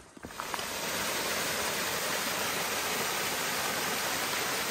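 Steady rushing of a river or stream, an even hiss that comes in within the first second and holds level.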